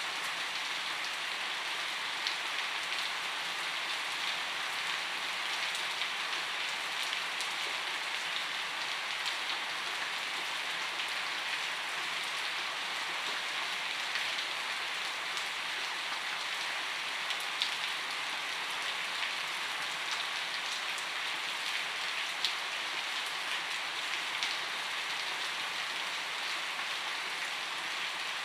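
Steady rainfall: an even hiss of rain on a surface, with scattered single drops ticking a little louder here and there.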